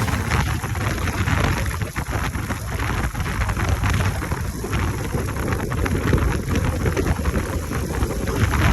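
Wind rushing over the microphone while a Royal Enfield Himalayan motorcycle is ridden, its engine running underneath as a steady low rumble.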